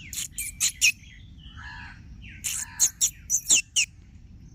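Loud, sharp bird calls in two quick runs: about four near the start and about five more from about two and a half seconds in, with softer chirps between them.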